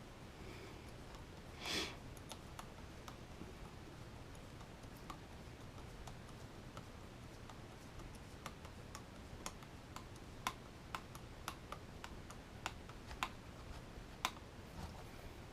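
Small sharp clicks and taps of RC crawler suspension-link parts and hardware being handled and fitted by hand, with a brief rustle about two seconds in and a string of separate clicks in the second half.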